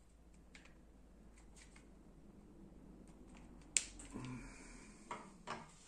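Faint plastic clicks and handling noise as the two halves of a plasma cutter torch's plastic handle shell are pulled apart, with one sharper click about two-thirds of the way in.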